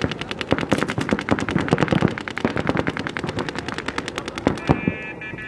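Paintball markers firing rapid strings of shots, about ten or more a second. The shooting stops near the end and a steady high tone sounds.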